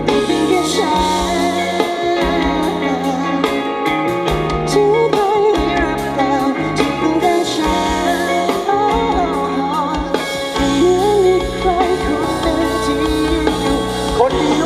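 Live band playing a song: a lead vocal sings a melody over bass, guitar and drums.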